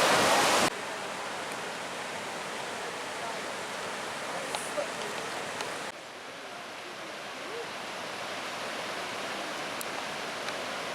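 Steady rush of fast-flowing water from a creek and falls running high with snowmelt. It is loud for the first moment, then drops suddenly to a quieter steady rush, with another slight drop about six seconds in.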